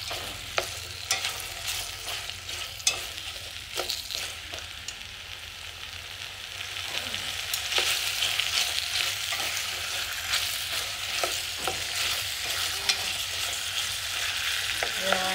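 Jackfruit and lotus stems sizzling in hot oil in a stainless steel pot, stirred with chopsticks that click against the pot. The sizzle grows louder about halfway through.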